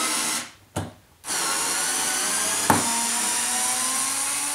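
RYOBI TEK4 4-volt cordless screwdriver running as it drives a screw into a 2x4, with a steady motor whine. It stops with a click about half a second in, starts again a moment later and runs on, with one sharp click partway through.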